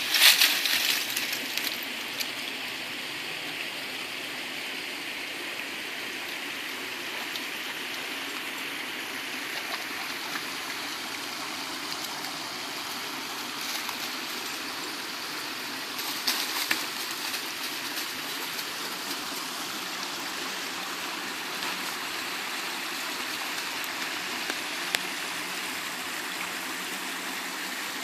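A small woodland creek running over rocks, a steady rush of water. Brief bursts of crackling near the start and about sixteen seconds in.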